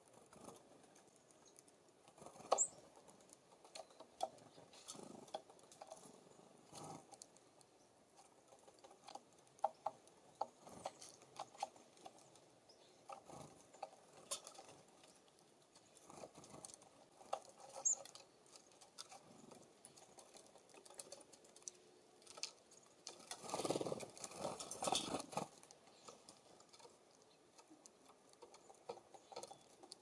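Birds working the feeders: scattered light taps and clicks of bills and feet on the wire cages and wooden platform. About three quarters of the way through, a two-second rush of noise.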